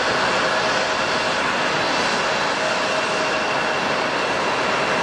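Jet airliner engines running: a steady rush with faint high whine tones and no change in level.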